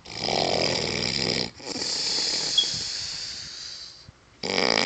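Snoring: a rough snore lasting about a second and a half, then a longer hissing breath, and the next snore starts near the end.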